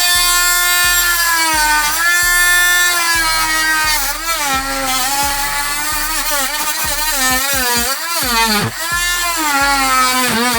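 Power saw cutting through wooden door trim along a marked line, its motor running steadily with the pitch sagging and recovering again and again as the blade bites under load.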